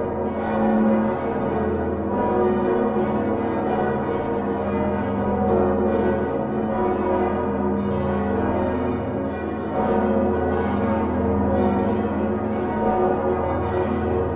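The swinging church bells of Utrecht's Dom tower, hung on straight yokes and led by the great Geryt van Wou bells of 1505, ringing together in a full peal: a continuous, dense overlap of strikes and long ringing tones over a deep hum.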